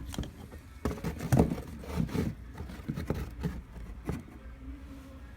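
Metal differential parts being handled and turned by hand: irregular clicks, knocks and scrapes, in clusters about once a second.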